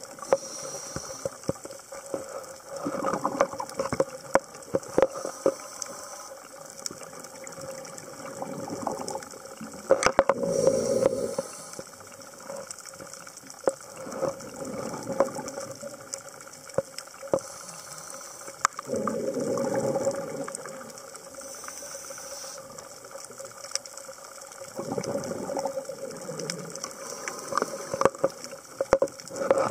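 Scuba diver breathing underwater through a regulator: exhaled bubbles burble out in a surge about every seven seconds, four times. A continuous crackle of sharp clicks runs underneath.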